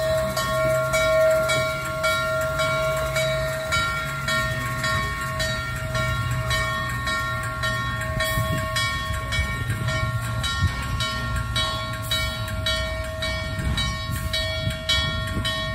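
Norfolk and Western J-class 4-8-4 steam locomotive 611 standing or creeping, its machinery running. A steady high whine over a low rumble, with a regular beat about twice a second.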